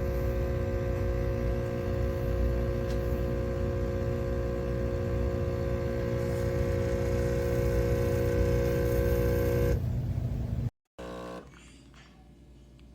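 Espresso machine running with a steady buzzing hum and low rumble, which stops abruptly about ten seconds in.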